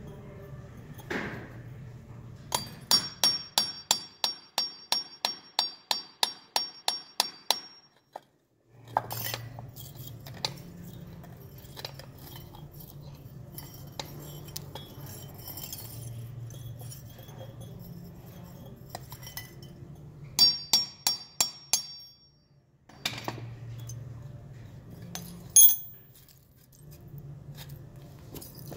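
Claw hammer striking a steel punch held against an aluminum casting to chip away its plaster mold: a quick run of about sixteen ringing metallic taps, about three a second, and later a shorter run of about six, with a few single knocks between.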